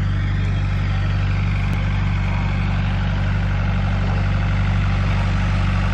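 Steady low hum of an engine idling.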